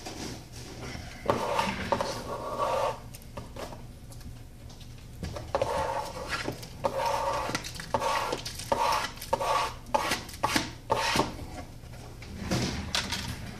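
Shattered phone glass being scraped and pried at with a tool while a Samsung Galaxy S5's cracked screen is taken off: repeated bursts of gritty scraping with scattered sharp clicks.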